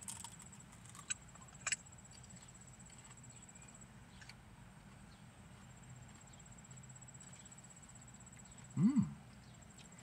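Biting into a raw purple UFO pepper: a few crisp crunches in the first two seconds, then quiet chewing. A short hummed 'mm' near the end.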